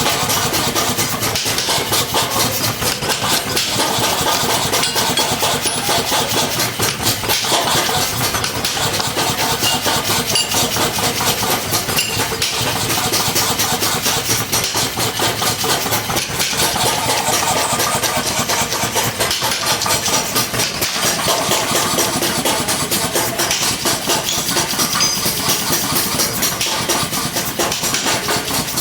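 Motor-driven mechanical hammer running steadily, pounding with rapid, even blows.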